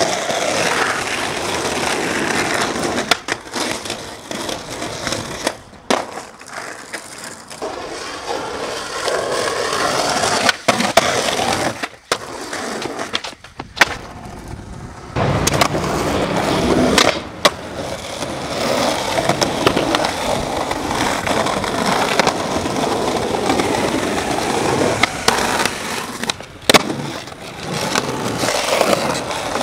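Skateboard wheels rolling on rough asphalt and concrete, with several sharp clacks of the board popping and landing. The sound cuts off abruptly a few times where one clip gives way to the next.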